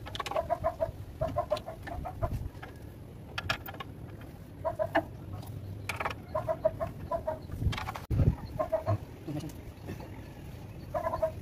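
Chickens clucking, short repeated notes in little runs, with a few knocks, the loudest about eight seconds in.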